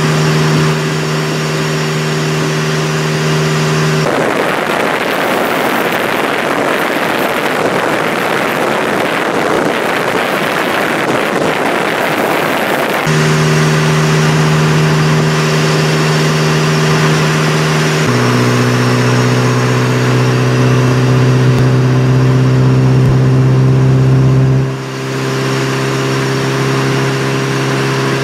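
Motorcycle engine cruising at a steady highway speed, a constant hum over wind and road noise. The sound changes abruptly several times, and for a stretch about four to thirteen seconds in it is mostly the rush of wind.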